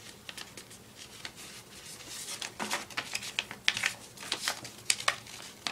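A sheet of paper being folded and creased by hand, crinkling and rustling, with short sharp scrapes as the folds are pressed flat; busier and louder in the second half.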